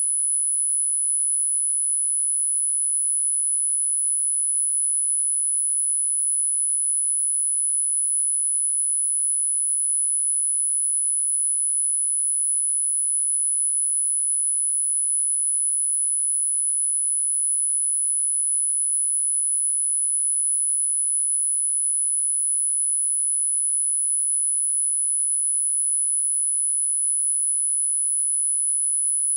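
A steady, very high-pitched pure sine tone held unchanged: the frequency tone of a subliminal audio track.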